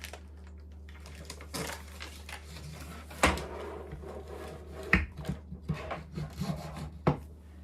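Hard objects being handled: a few sharp knocks and clicks, the loudest about three seconds in, with light scraping and rubbing between them, over a steady low hum.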